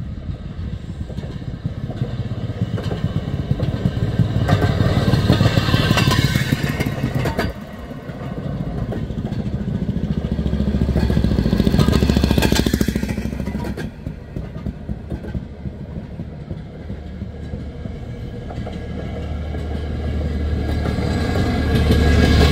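Railroad motorcars (track speeders) running past on the rails one after another, their small gasoline engines puttering. The sound swells and fades as each car goes by, loudest about 5 s in and about 12 s in, with the next car coming up loud near the end.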